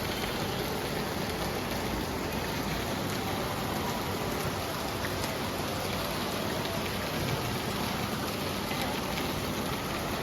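Steady rain falling, an even hiss with the odd faint drop tick.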